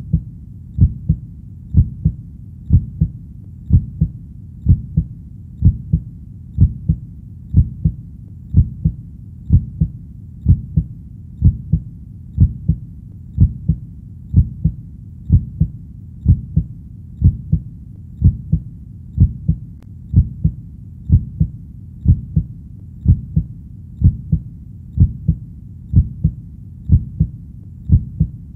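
Steady heartbeat: a low double thump, lub-dub, repeating at an even rate of about 65 beats a minute.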